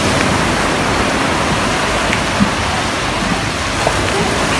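Steady rush of small waves breaking and washing up a sandy beach, an even, continuous noise, with one faint brief tap a little past halfway.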